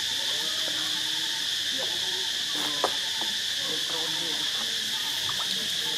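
Steady, high-pitched insect chorus that drones without a break, with a single sharp click about halfway through.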